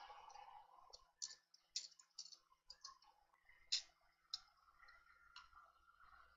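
Faint, irregular clicks and taps of a tablet's circuit board and small parts being handled and fitted back into the case, with one sharper click about four seconds in.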